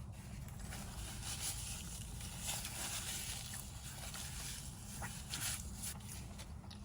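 Soft chewing and eating sounds, a few faint mouth noises, over a low steady hum.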